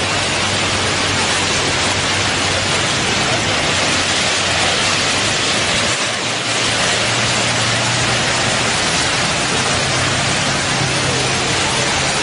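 Loud, steady rushing of surf and churning seawater washing around a pickup truck and travel trailer in the waves, with a low steady hum underneath.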